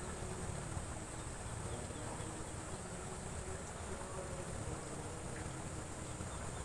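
Steady high-pitched insect buzzing in the vegetation, with a low rushing of ditch water underneath.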